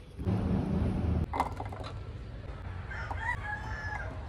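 A rooster crowing, with a short loud rush of noise in the first second.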